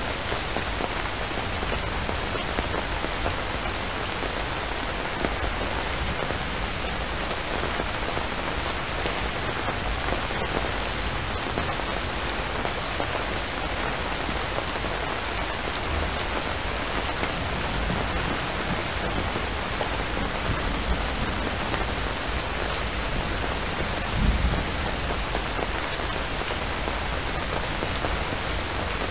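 Steady rain falling, with individual drops striking close by in scattered clicks. About three-quarters of the way through there is one brief low thump.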